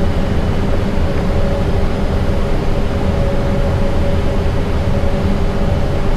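Steady rushing noise inside an Airbus A320 cockpit with the engines idling on the ground, with a low rumble and two faint steady hums.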